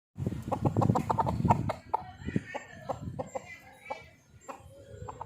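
Chickens clucking: a loud rapid clatter of short sounds through the first two seconds, then softer short clucking calls.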